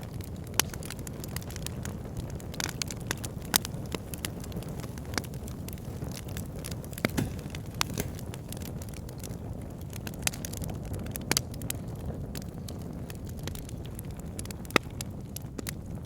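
Wood fire burning in a log burner: a steady low rumble of flames with irregular sharp crackles and pops from the logs, some much louder than the rest.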